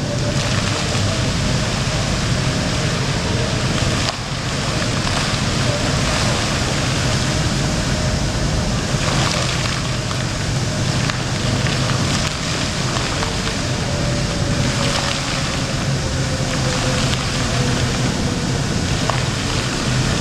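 Indoor fountain's water jets arcing and splashing into a shallow pool: a steady rush of falling water.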